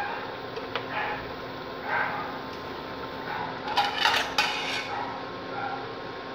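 Metal ladle clinking and scraping against a stainless steel pot of thick curry, with a cluster of sharper clinks about four seconds in as the ladle is rested against the rim.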